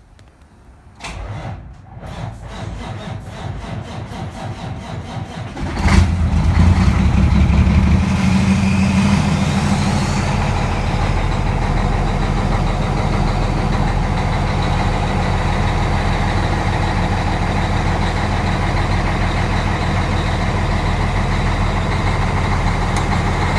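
Cummins ISX15 inline-six diesel in a 2006 Peterbilt 379 cold-starting at 19°F: the starter cranks it in an even rhythm for about five seconds, a hard start, before it catches about six seconds in, runs briefly at a higher speed, then settles into a steady idle.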